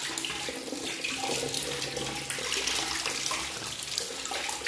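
Tap water running steadily into a sink while a child rinses his hands under it.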